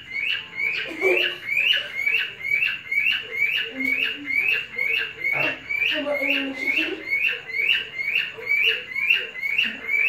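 A bird chirping one short rising note over and over in an even rhythm, about three chirps a second.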